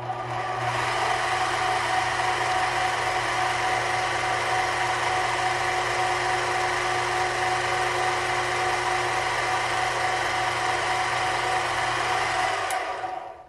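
Mini metal lathe running with a steady, even whine while a small bit in the tailstock chuck drills a pilot hole into the end of a spinning brass part. The lathe stops near the end.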